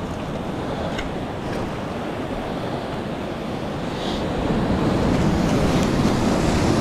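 Sea surf washing and foaming over shoreline rocks, swelling louder about two-thirds of the way through.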